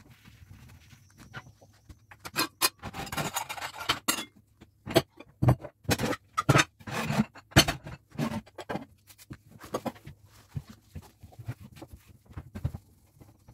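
Cleaning inside a kitchen cupboard: a cloth rubbing over the shelves, with irregular knocks and clatters of plates and bowls being moved and of the cupboard's wooden panels.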